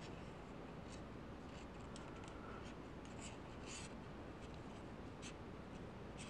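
Faint rubbing and scratching of nylon paracord being handled and pulled tight into a knot, in scattered short strokes.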